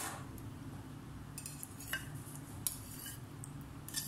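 A metal utensil clinking and scraping against a ceramic plate and glass dish as set jelly is cut and pushed off: a few light, separate clicks over a steady low background hum.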